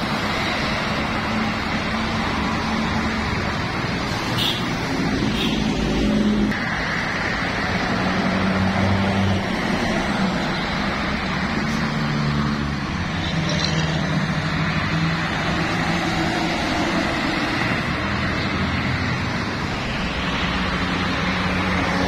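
Diesel buses and other road traffic driving past close by: steady engine and tyre noise, the engine hum shifting in pitch as each bus goes by.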